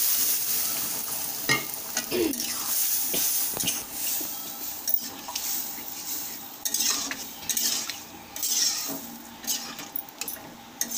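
Sizzling as boiled dal hits the hot oil and fried whole spices in a steel pan, the hiss dying away over the first couple of seconds. Then a metal spatula stirs the dal, scraping and clinking against the pan at irregular intervals.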